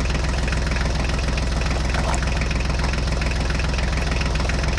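Tractor diesel engine sound running steadily with a fast, even chug.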